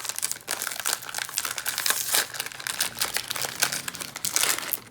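Plastic snack wrapper crinkling as it is handled and opened, a dense, continuous run of crackles and rustles.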